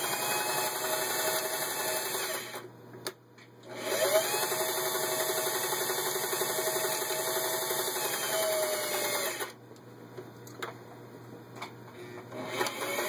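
Singer 503A sewing machine stitching through six layers of denim: the motor speeds up and runs briefly, stops about two and a half seconds in, then runs again for about six seconds before slowing to a stop. A few sharp clicks follow while it stands, and the motor starts up again near the end.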